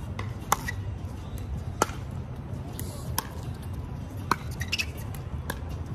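Pickleball paddles striking a plastic pickleball in a rally: a series of sharp pops about a second or so apart, with fainter clicks between them.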